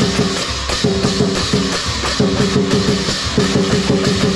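Fast lion-dance drumming with clashing cymbals, driving a quick steady beat.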